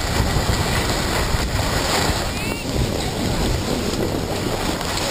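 Steady wind buffeting the microphone of a camera moving down a ski slope, mixed with the hiss of sliding over snow.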